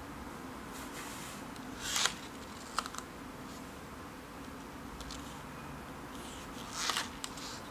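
Pages of a spiral-bound sketchbook turned by hand: two short papery swishes, about two seconds in and again near the end, with a couple of small clicks just after the first, over a steady faint hiss.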